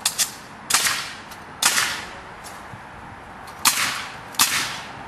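Pneumatic nail gun firing six sharp shots at irregular intervals, each followed by a brief hiss of exhaust air, driving nails into a wooden fence's 2x4 rails.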